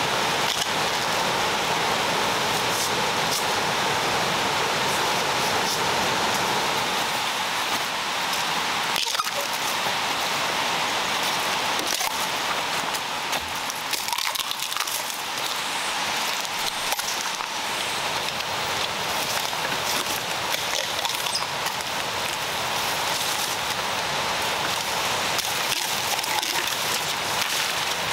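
A steady rushing hiss of forest ambience, with scattered small snaps and rustles as bamboo stems are pushed aside and a bamboo shoot is cut with a machete.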